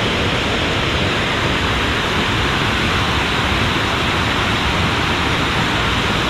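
Steady rush of falling water from Jog Falls, the Sharavati River dropping into its gorge: an even, unbroken hiss with no changes.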